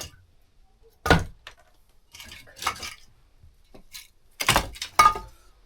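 Split firewood logs clunking as they are dropped and stacked into a box, about four sharp knocks with smaller clatters and rustling between, the last two close together near the end.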